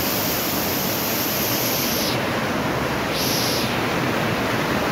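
Floodwater of an overflowing river rushing past in a steady, dense noise, with a brighter hiss that swells and fades twice.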